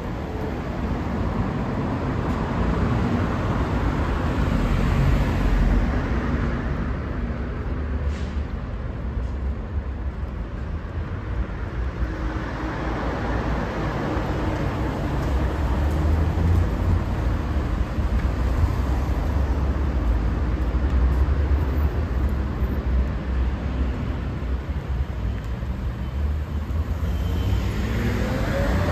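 Road traffic: motor vehicles driving past in a continuous rumble that swells and eases. Near the end one engine rises in pitch as a vehicle accelerates.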